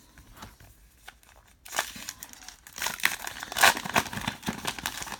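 A 2019 Topps Heritage baseball card pack wrapper being torn open and crinkled by hand. The crackling starts about two seconds in and is loudest near the end.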